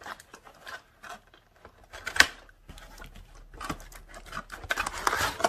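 Plastic toy packaging being handled and pulled open: scattered small clicks and scrapes, one sharp snap about two seconds in, and a rustle near the end.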